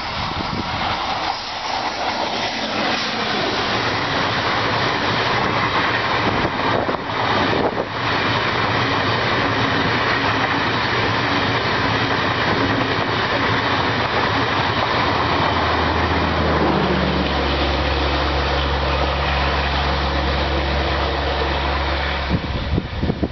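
Garib Rath express passenger train, hauled by a WCAM-3 electric locomotive, running past at speed: a steady loud rolling noise of the coaches' wheels on the rails. For the last several seconds a low steady hum joins in, and it cuts off suddenly near the end.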